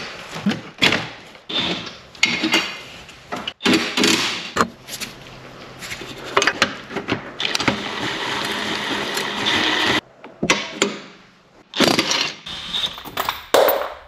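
Work on car bolts with hand tools: a string of sharp metal clicks and knocks, with a steady mechanical whirr for about two and a half seconds around the middle.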